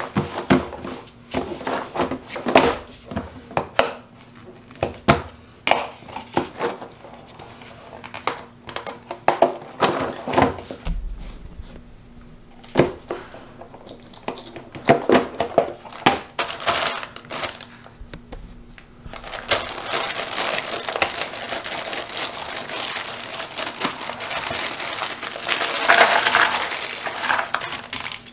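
A cardboard jigsaw-puzzle box is handled on a tabletop: a run of sharp taps and knocks. From about twenty seconds in, plastic wrapping crinkles steadily as the box is opened and the clear bag of pieces is pulled out.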